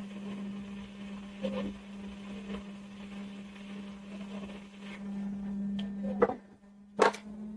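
Hot-air rework station blowing, a steady hum with airflow hiss, heating a shorted component off a graphics card board. The hiss fades about five seconds in while the hum carries on, and two sharp clicks come near the end, the second the louder.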